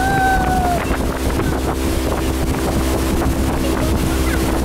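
Motor of a small open boat running steadily under way, with wind on the microphone and rushing water. A short high held tone sounds at the very start and falls away within a second.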